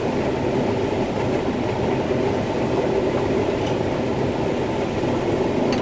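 Combine harvester running steadily while harvesting corn, heard from inside the cab: an even, unchanging mechanical drone.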